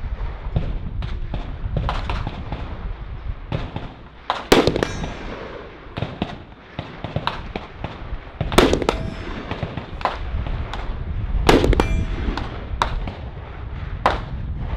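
Rifle shots at an outdoor range: three loud shots, a few seconds apart, each trailed by an echo, with many fainter shots from other firing bays in between.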